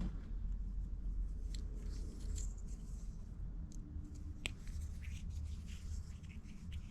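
Small hex (Allen) wrench turning tiny screws out of the Axial SCX24 micro crawler's gear cover: faint scratching and light ticks, with one sharper click about four and a half seconds in, over a low rumble of handling.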